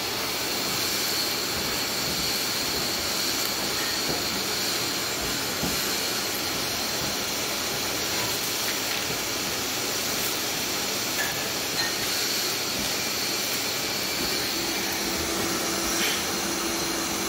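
Electric motor-driven tool running continuously at a steady speed, a even hissing whir with no breaks, with a faint steady hum joining near the end.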